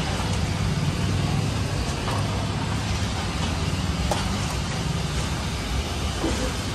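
Steady low rumble of road traffic under a continuous even hiss.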